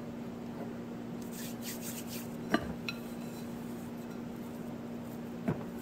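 A few short clinks of glass bowls being handled on a countertop: a sharp one about two and a half seconds in, a softer one just after, and another near the end, over a steady low hum.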